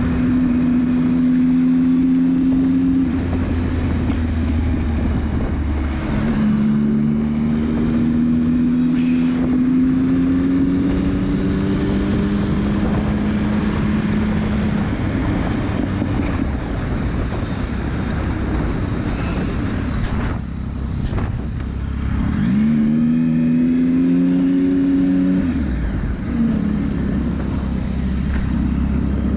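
Motorcycle engine running at speed, heard from the rider's seat over steady wind rush. The engine pitch climbs slowly for several seconds as the bike accelerates, then revs up sharply about two-thirds of the way through and drops off a few seconds later.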